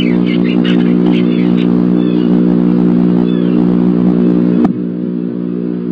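A steady low hum with no change in pitch, with faint short bird chirps over it during the first few seconds. A sharp click comes about four and a half seconds in, after which the hum goes on with less hiss.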